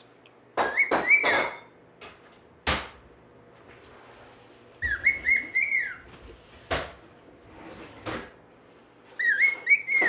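Pet bird whistling a short, wavering phrase three times, with a few sharp clicks or taps in between.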